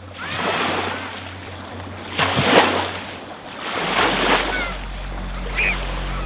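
Surf-like swells of rushing noise, three of them about two seconds apart, over a low steady musical drone, with a few short gliding tones.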